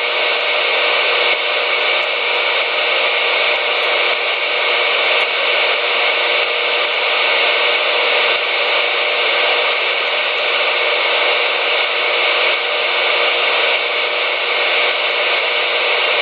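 CB radio receiver giving out steady static hiss through its speaker, an open channel with no voice on it, with a faint steady hum under the noise.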